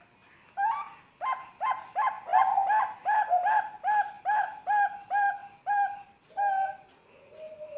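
Young zebra dove (perkutut, Bangkok song strain), about three months old, cooing. It gives a run of about fifteen short coos, roughly three a second, with a short pause before the last one.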